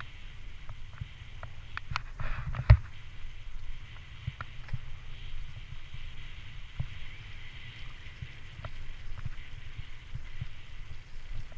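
Bicycle riding along a wet towpath, heard through a bike-mounted action camera: a steady low rumble with a hiss of tyres on the wet surface, scattered clicks and rattles, and one sharp knock a little under three seconds in.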